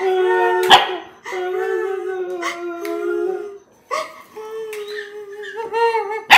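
German Shepherd puppy howling and whining in long, drawn-out cries, answering a person who hides her face as if crying. Two sharp knocks cut in, one about a second in and one at the end.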